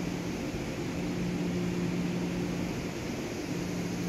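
Centrifugal dust-extractor fan of an industrial dust-collection system running in full operation: a steady rush of air with a low, even hum.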